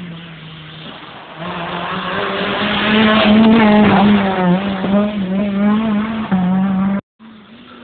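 Renault Mégane Coupé rally car driven hard past at speed, its engine revving up and dropping back again and again through the gears. It gets louder as it approaches, is loudest as it passes close by, then fades as it pulls away. The sound cuts out abruptly for a moment near the end.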